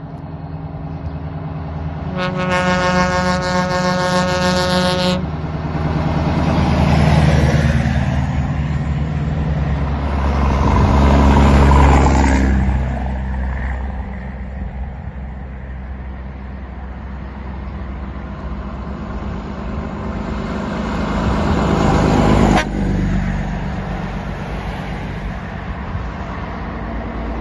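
Heavy diesel trucks driving past one after another, their engine and tyre noise swelling as each goes by. A truck air horn blows one steady note for about three seconds, a couple of seconds in.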